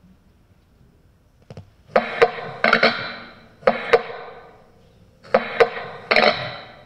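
The routine's music starting: after a short quiet, groups of sharp struck notes that ring out, coming in three clusters of two to four hits.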